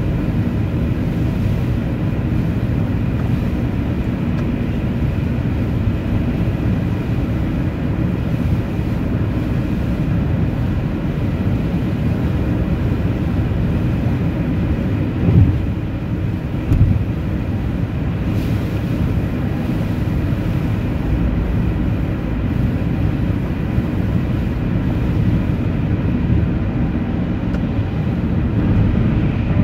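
Steady low rumble of a vehicle driving, with two brief thumps about halfway through.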